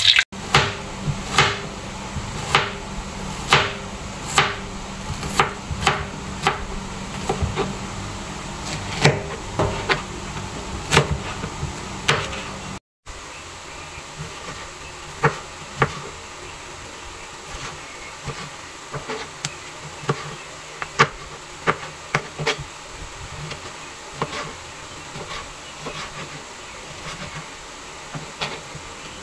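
Sharp knocks over a low hum for about the first half. After a brief break, a kitchen knife chops tomatoes and green chillies on a plastic cutting board, the blade knocking on the board every second or so.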